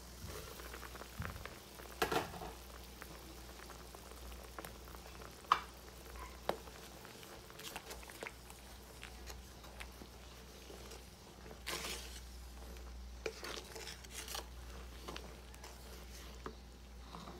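Broth bubbling at a boil in a pot while a wooden spatula stirs it, with scattered clicks and knocks, the sharpest about five and a half seconds in.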